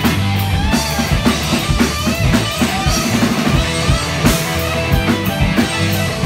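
Live rock band playing with electric guitars, electric bass and a drum kit, driven by a steady beat on the drums, with two crashing accents, about a second in and just past four seconds, and bending guitar notes.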